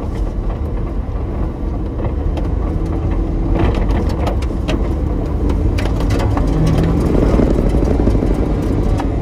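Daihatsu Hijet kei truck driving in 4WD over rough riverbed gravel, heard from inside the cab: its small three-cylinder engine drones steadily under load while the stones and the cab give off a run of clatters and knocks. The engine gets louder about seven seconds in.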